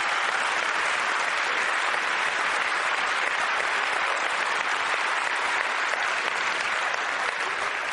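Audience applauding steadily, beginning to fade near the end.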